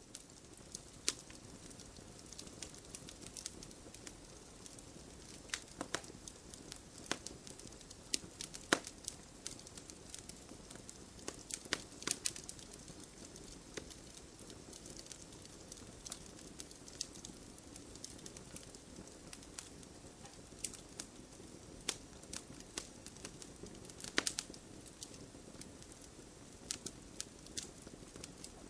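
Campfire crackling, from a stock sound-effect recording: irregular sharp pops and snaps over a low, steady hiss.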